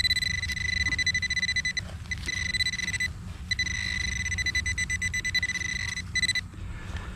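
Handheld metal-detecting pinpointer sounding a steady high-pitched alert tone, cutting out briefly twice and stopping about six seconds in, as it picks up the metal target inside a clod of dug soil.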